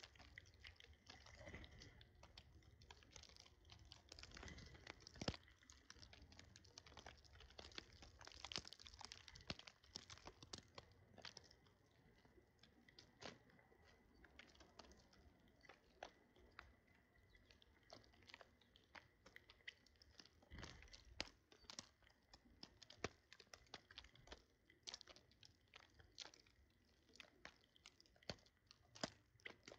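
Birds pecking at food, cracking seeds with their beaks: faint, quick, irregular ticks and crunches.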